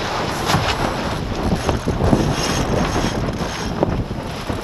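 Wind buffeting the microphone over the rush of water along a J24 sailboat's hull as it sails heeled over through chop, with irregular splashes and slaps of waves against the boat.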